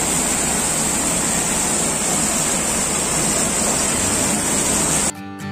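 Steady splashing rush of a water-curtain fountain, with many streams falling from a curved ledge into a shallow pool. Near the end the water sound cuts off abruptly and acoustic guitar music begins.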